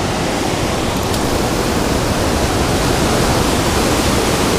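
Surf breaking and washing up a cobble beach: a steady, loud rush of noise.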